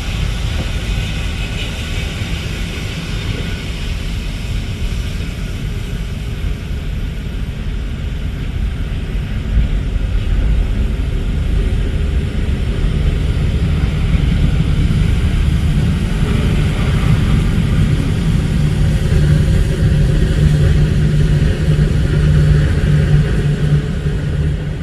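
Jet airliner engines rumbling steadily, with a low hum that builds up over the second half.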